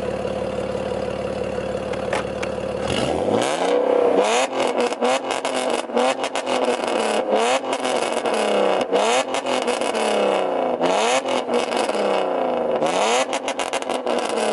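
BMW E46 exhaust with its valve open, idling and then, from about three seconds in, blipped again and again to high revs. Sharp pops and crackles fire as the revs drop, super loud at the tip; the owner says the engine's cylinders are misfiring.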